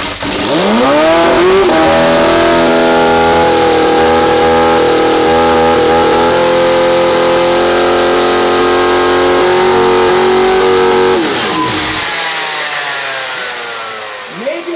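McLaren P1's twin-turbo V8 catching and revving straight up to a high, steady hold of about 5,000 RPM for roughly ten seconds, then shut off and winding down near the end. The unintended rev comes from the RC throttle map, whose first cell was set to 20% rather than starting near 5%.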